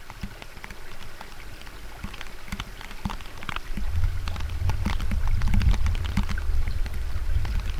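Wind rumbling on the microphone, swelling about four seconds in, with scattered small clicks and crackles.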